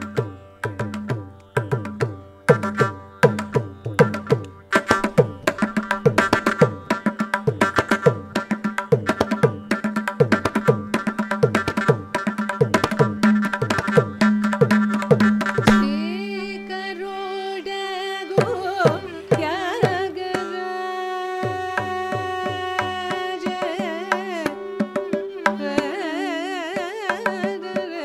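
Mridangam and morsing (jaw harp) playing a fast Carnatic percussion passage, sharp drum strokes over the morsing's steady twanging tone. About halfway through the percussion stops and melodic lines with sliding ornaments take over above a steady drone, with the vocalist singing near the end.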